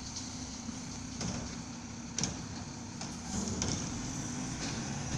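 Garbage truck engine running steadily as the truck moves off up the street, with a few short knocks and clatters.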